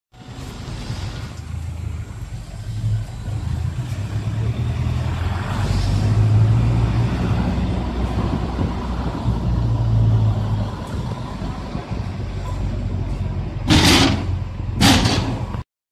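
Bus engine running as the bus moves, heard from inside: a steady low rumble that swells and eases. Near the end come two short loud bursts of hiss about a second apart.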